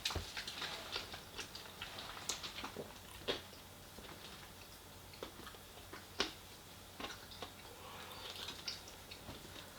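Close-miked eating sounds: chewing with irregular wet mouth clicks and smacks, two sharper clicks about three and six seconds in.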